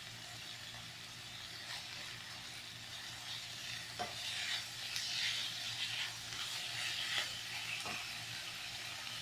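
Chicken pieces, onion and garlic sizzling in oil in a non-stick frying pan while a silicone spatula stirs and scrapes them. The stirring grows louder from about four seconds in, with a light knock of the spatula on the pan near four and eight seconds.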